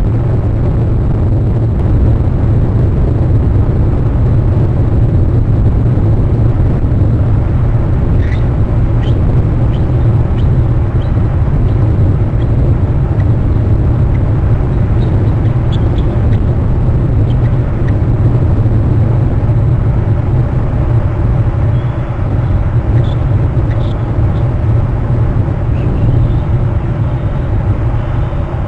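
Steady, loud low rumble picked up by an outdoor nest-camera microphone, with a few faint, short high chirps scattered through it.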